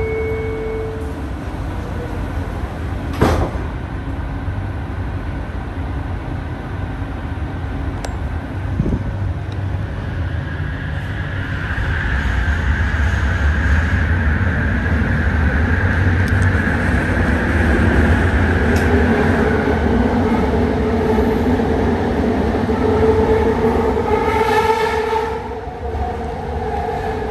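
Interior running noise of a RapidKL ART200 metro car with a low rumble, a sharp click about three seconds in, then the noise grows louder and a high wheel squeal joins it for several seconds. Near the end a short whine with several tones sounds.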